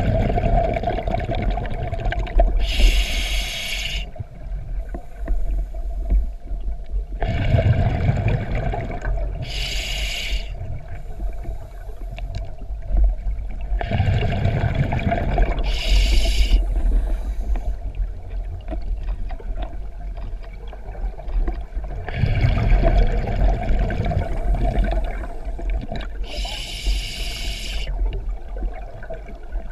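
Scuba diver breathing through a regulator underwater: bubbles of exhaled air rumbling and gurgling, broken four times by a short hiss from the regulator.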